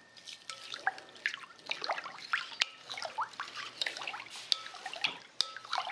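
Wooden spoon stirring salt into a bowl of water to dissolve it for a kimchi brine: water swishing and trickling, with irregular light clicks and scrapes of the spoon against the bowl.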